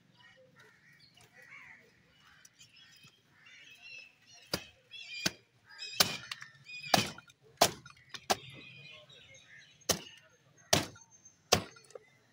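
A heavy butcher's cleaver chopping through the bone of a buffalo head on a wooden chopping block. About nine sharp blows land in the second half, each less than a second after the one before.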